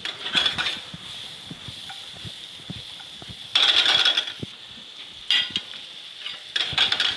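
Chopped vegetables sizzling in butter and olive oil in a skillet on a gas burner, with four louder bursts of scraping and rattling as the pan is shaken and the vegetables are tossed with tongs.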